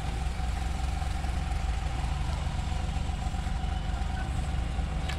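Steady low mechanical rumble with a faint constant hum, unchanging throughout.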